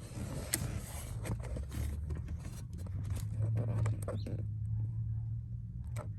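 Scattered clicks and knocks from handling work, over a steady low rumble that swells in the middle.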